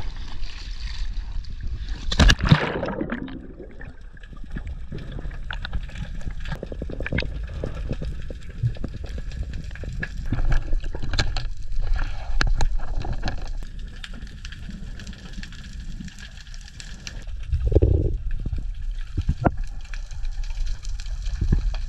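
A diver rolls off an inflatable boat into the sea with a splash about two seconds in. After that, water is heard muffled from underwater: a low sloshing and gurgling, scattered sharp clicks and crackles, and a louder surge of water near the end.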